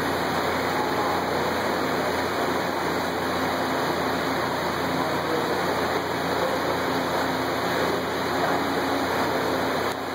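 Steady rushing noise with a faint low hum running through it.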